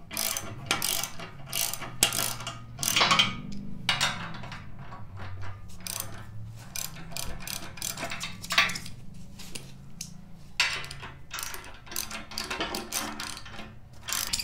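Socket ratchet wrench clicking in repeated strokes as bolts are snugged up, the pawl ticking on each back-swing.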